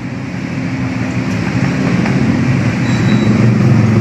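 A motor or engine running steadily with a low hum that grows gradually louder.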